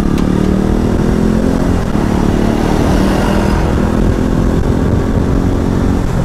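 KTM motorcycle's single-cylinder engine pulling steadily under acceleration, the bike gathering speed from about 30 to over 50 km/h, with wind rushing over the camera.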